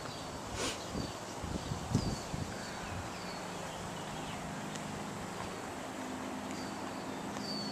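A bird calling outdoors: short high chirps that fall in pitch, repeated about once a second. A few soft low thumps of footsteps and handling are heard in the first couple of seconds, and a faint steady low hum comes in about halfway through.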